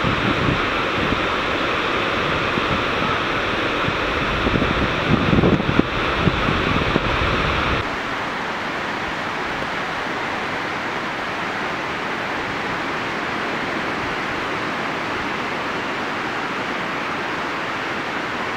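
Ocean surf breaking and washing ashore, with wind buffeting the microphone as an uneven low rumble. About eight seconds in, the sound changes abruptly to a steady, even hiss of surf without the wind rumble.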